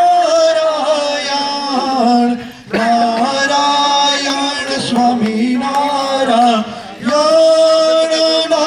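Male voice chanting havan mantras in a sung melody with long held notes, broken by two short pauses for breath.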